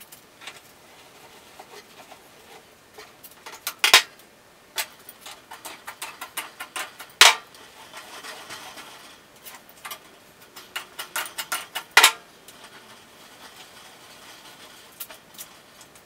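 Steel flat bar clinking and clanking against a hand-cranked ring roller and steel table as it is rolled into a coil for auger flighting: many irregular light clicks and knocks, with three loud metal clanks about four, seven and twelve seconds in.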